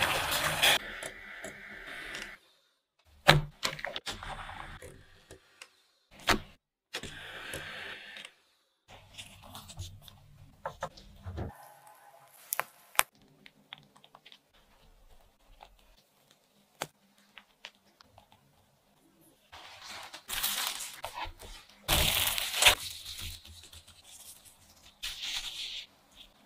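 Food-preparation handling noises: bursts of rustling, crinkling and tearing with sharp clicks and taps, broken by short silences. The loudest bursts come at the start and again about twenty seconds in.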